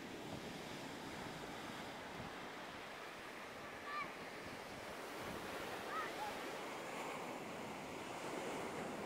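Ocean surf breaking and washing up a sandy beach, a steady rushing roar, with some wind buffeting the microphone. A couple of short high cries cut through it about four and six seconds in.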